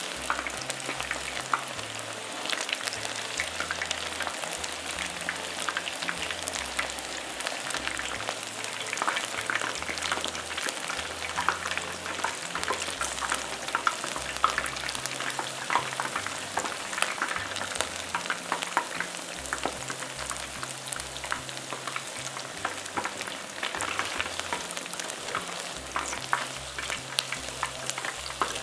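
Battered boneless chicken thigh pieces deep-frying in hot oil: a dense, steady crackle and sizzle of bubbling oil, stirred now and then with chopsticks.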